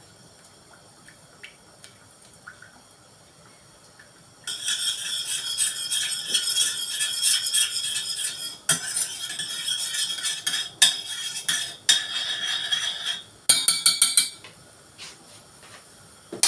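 A metal utensil scraping and clinking around a stainless steel pot, stirring margarine and olive oil as they melt for a béchamel sauce. It starts about four seconds in, runs for about ten seconds with a few sharper knocks against the pot, and stops; a single click comes at the very end.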